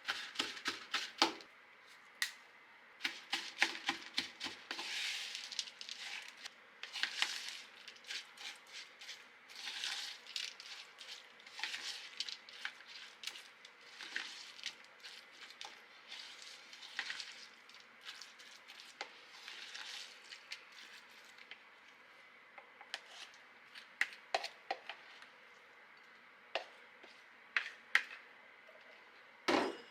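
Dishes and eating utensils clinking, tapping and scraping in a string of short, irregular clatters.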